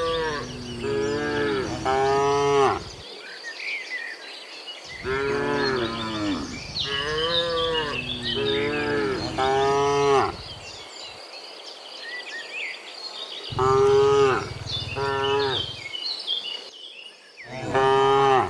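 Cows mooing, one long call after another in several groups, with short pauses between them. Faint bird chirps can be heard in the gaps.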